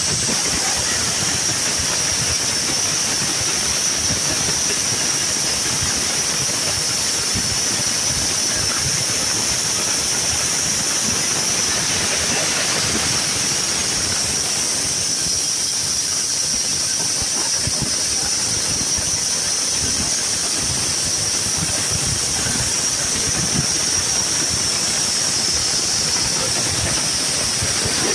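Wood-Mizer LX250 band sawmill running with its band blade cutting lengthwise through a log: a steady, high-pitched sawing noise over the machine's running, with no break.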